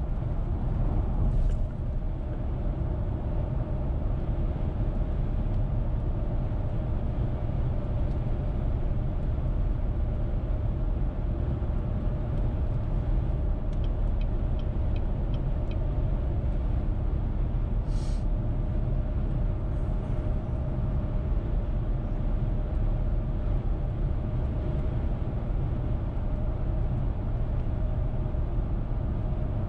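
Steady road noise of a car cruising on the interstate: a low rumble of tyres and engine with a steady drone. A short run of light ticks about halfway through and a brief hiss a little later.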